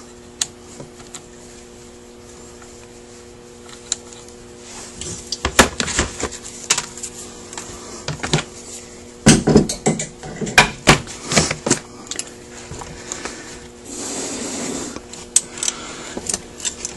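Scattered metallic clicks, taps and a short scrape from a screwdriver and small parts being worked loose on a Rochester Quadrajet carburetor during teardown, in bunches about five, ten and fifteen seconds in. A faint steady hum runs underneath.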